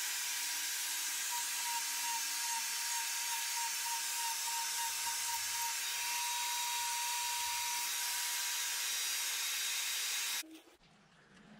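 Die grinder fitted with a flame burr, grinding over-burnt char off a torched wood carving: a steady high whine over a gritty hiss. It stops abruptly near the end.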